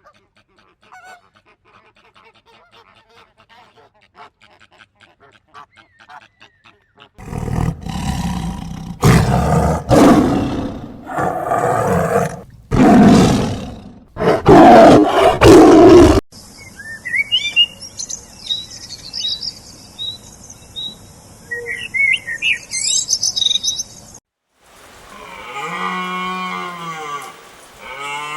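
A run of different animal calls one after another: faint rapid chirping, then a series of loud growling roars from about seven seconds in, then high bird-like chirps, and near the end drawn-out pitched calls.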